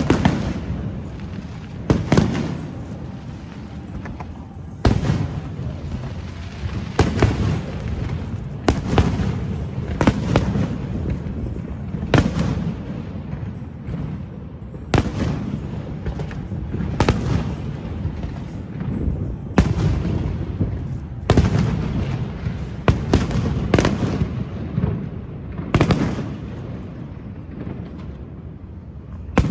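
Aerial fireworks display: sharp bangs of bursting shells every one to three seconds, over a continuous low rumble and crackle between the bursts.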